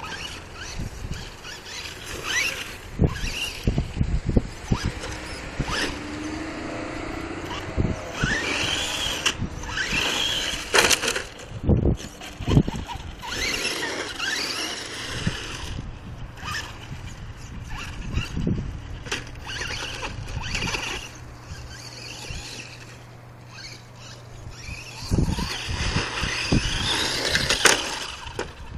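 Electric motor and drivetrain of a Traxxas Stampede 4x4 radio-controlled monster truck whining up and down in pitch as it speeds up and slows, with its tyres on asphalt and repeated knocks as it bumps and tumbles, flipping over near the end.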